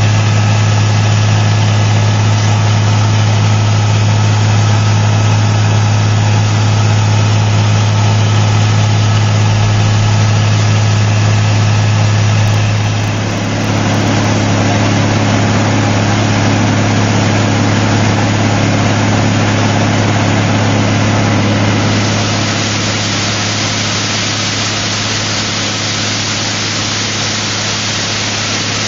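Cummins N14 diesel of an Ingersoll-Rand DM45 crawler blast hole drill running steadily with a deep, even hum. About halfway through the tone shifts. About three-quarters of the way through, a loud steady hiss joins in.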